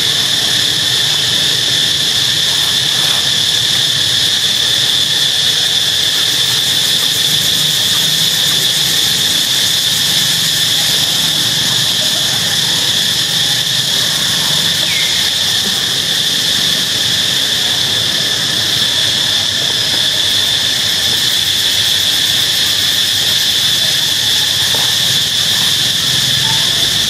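Steady, unbroken, high-pitched drone of insects, typical of a cicada chorus in the trees.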